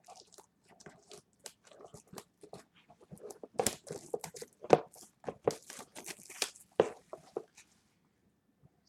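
Plastic shrink-wrap being torn off a sports card box and crumpled: an irregular run of crackles and crinkles, loudest in the middle, that stops about a second before the end.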